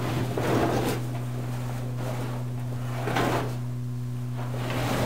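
Soft rustling and shuffling of a caver moving on the cave floor, in a few short swells: near the start, about three seconds in, and near the end. A steady low electrical hum runs underneath.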